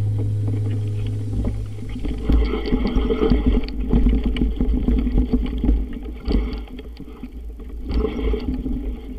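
A steady low note of background music fades out in the first two seconds. Then wind buffets the microphone of a camera moving fast along a rough dirt forest trail, a low uneven rumble with frequent knocks and rattles from the bumpy ride.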